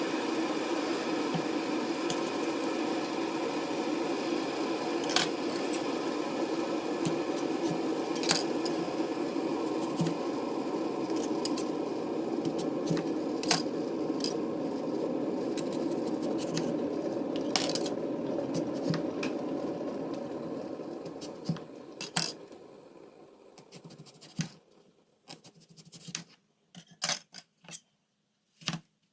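A kitchen appliance running with a steady hum, with occasional clicks and clinks of dishes and utensils over it. After about twenty seconds the hum dies away, leaving scattered taps and clicks of food preparation.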